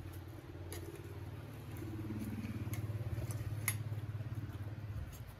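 A vehicle engine running steadily, swelling toward the middle and dropping away near the end, with a few light clinks of forks and spoons on plates.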